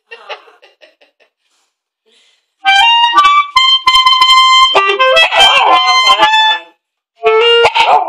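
Clarinet played loudly in short, halting phrases of held notes, starting about three seconds in, with a brief break near the end. A puppy howls along near the end.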